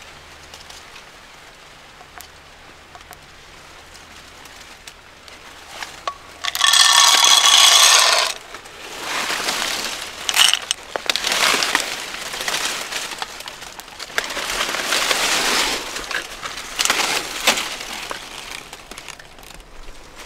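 Shelled dry corn kernels rattling loudly for about a second and a half as they are poured into a handheld grain moisture tester, about six and a half seconds in. After that come repeated bursts of dry corn leaves and stalks rustling.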